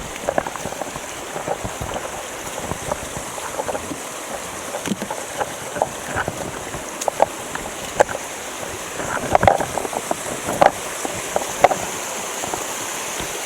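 Water splashing and lapping around a kayak moving on a river: small irregular splashes, a few louder ones near the end, over a steady rushing hiss.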